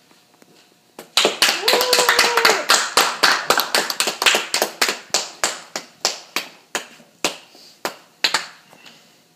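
A few people clapping, starting about a second in: quick and dense at first, thinning to scattered single claps near the end. A short held vocal cheer sounds under the clapping about two seconds in.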